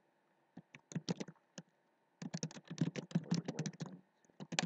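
Computer keyboard typing: a few scattered keystrokes, then a quick run of rapid keystrokes from about halfway on.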